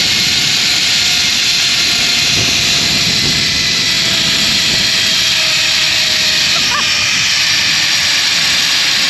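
Zipline trolley pulleys running fast along the steel cable: a steady, loud rushing hiss with a faint whine that slowly falls in pitch.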